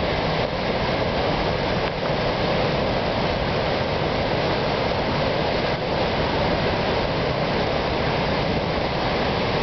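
Steady rush of the Mohawk River in flood during an ice breakup, the fast high water running without a break.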